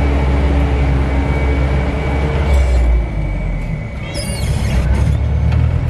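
Mitsubishi Canter 125 PS diesel bus engine running under way, heard from inside the cab; its note drops about halfway through as the engine eases off, and a brief high squeal comes about two-thirds in.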